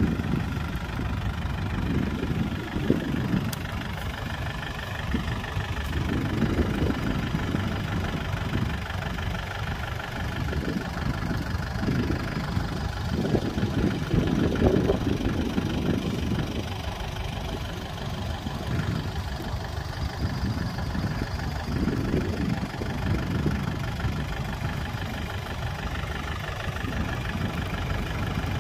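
Kubota tractor's diesel engine running steadily, its low sound swelling and easing every few seconds.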